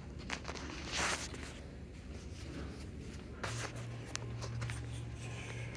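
Faint rustling and brushing handling noise with scattered small clicks over a low background hum. A steadier low hum comes in about three and a half seconds in.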